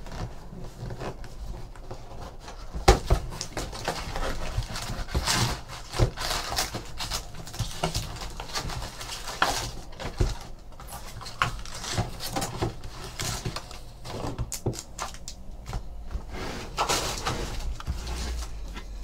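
Trading card packs being opened and handled by hand: foil wrappers crinkling and tearing, with irregular light clicks and scuffs of cards and cardboard.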